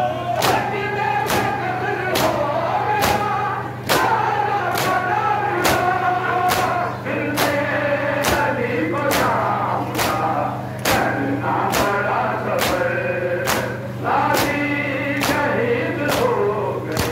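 A group of men chanting a Muharram noha together, with rhythmic matam chest-beating thuds landing about one and a half times a second in time with the recitation. A steady low hum runs underneath.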